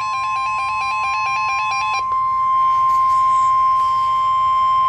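Emergency alert attention tone: one long, steady, loud electronic tone near 1 kHz, typical of the NOAA Weather Radio 1050 Hz warning alarm, announcing a National Weather Service snow squall warning. For about the first two seconds a rapid run of stepping electronic beeps at several pitches sounds over it.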